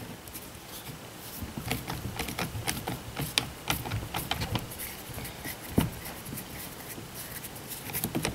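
Small metal clicks and scrapes of a nut driver turning the nuts that hold the air filter and carburetor on a Stihl MS210 chainsaw, with one sharper click a little before six seconds in.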